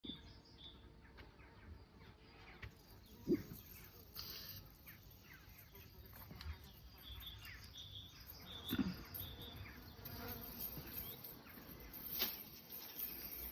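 Flying insects buzzing quietly. Twice, at about three and nine seconds in, one passes close with a brief buzz that falls in pitch. Faint short high chirps come and go.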